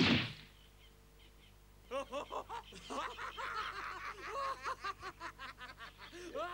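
A sharp hit right at the start, then after a short pause cartoon voices laughing helplessly in quick, choppy "ha-ha" bursts that keep going.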